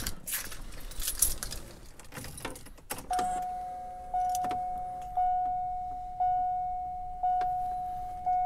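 Keys jangling and rustling at the ignition. About three seconds in, the 2002 Chevrolet Corvette's dashboard warning chime starts: a single clear tone struck about once a second, each chime fading before the next, as the ignition is switched on and the instrument cluster lights up.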